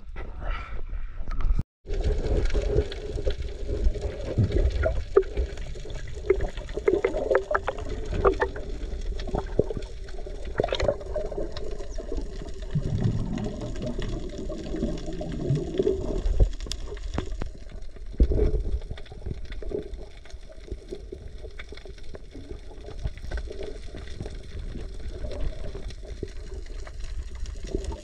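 Underwater sound from a camera below the surface: a muffled wash of water with many small clicks and crackles and a low rumble. The sound cuts out briefly just before two seconds in.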